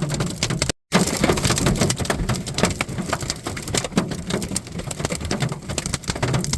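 Large hailstones hammering a car's windshield and body in a dense, unbroken barrage of hard impacts and cracks. The sound drops out abruptly for a split second just under a second in.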